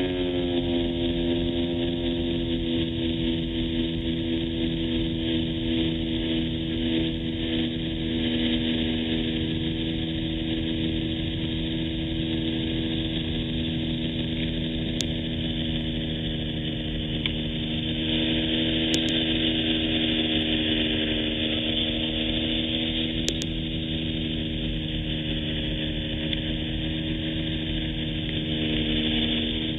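Small propeller plane's engine and propeller drone in flight, heard inside the cabin: a steady hum whose pitch dips slightly at the start and then holds.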